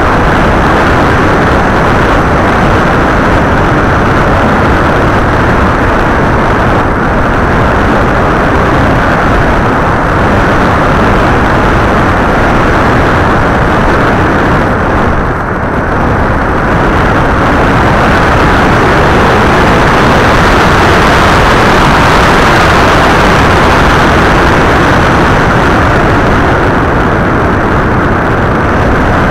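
Loud steady rush of wind and motor noise picked up by the onboard camera of an FPV model aircraft in flight, easing briefly about halfway through.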